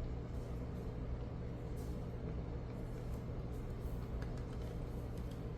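Steady low background hum, with a few faint clicks of plastic Lego pieces being handled about two and four seconds in.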